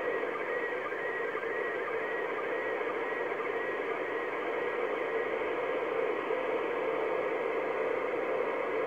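Weak slow-scan television (SSTV) signal from the International Space Station on 2 m FM (145.800 MHz), heard through the speaker of an ICOM IC-746PRO receiver. It is mostly steady hiss and static, with faint image tones and a faint pulse about twice a second in the first few seconds; the signal is still weak as the image starts to decode.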